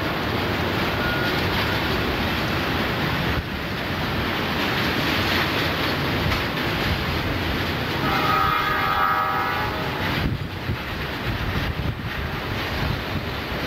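Freight train cars, gondolas and covered coil cars, rolling past with a steady rumble of wheels on rail. About eight seconds in, a train horn sounds once for about two seconds.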